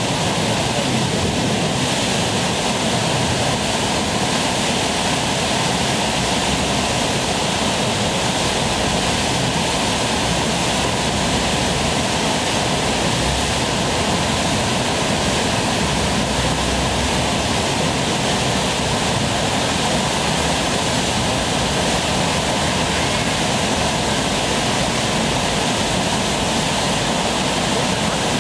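Fast river water rushing steadily through the Eisbach standing wave, a loud, unbroken rush of whitewater.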